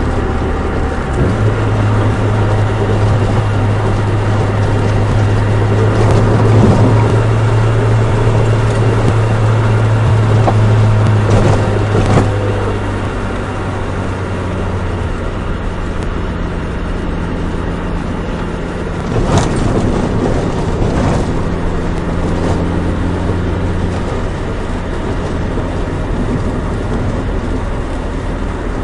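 Nissan Micra 1.3's four-cylinder engine and road noise on the move: a steady low engine drone that drops to a lower note about halfway through, with a few sharp knocks along the way.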